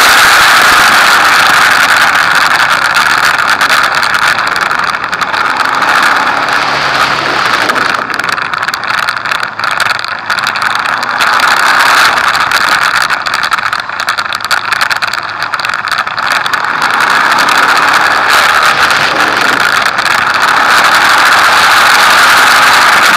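Motorcycle engine heard from onboard while riding at speed on a track, its revs rising and falling, under a loud steady rush of wind noise. The sound drops off briefly twice, around eight and fourteen seconds in.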